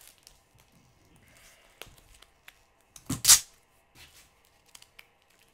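Packing tape being pulled off a mailed box: scattered quiet rustles and one short, louder rip about three seconds in.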